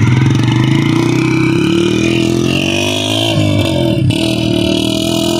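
Small motorcycle engine running under way, its pitch shifting as the rider works the throttle.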